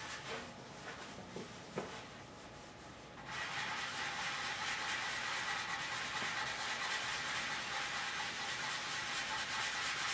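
Hand sanding of cured Bondo body filler on a steel motorcycle gas tank with a fine foam sanding block: a few light taps at first, then steady scratchy rubbing from about three seconds in as the filler is feathered smooth.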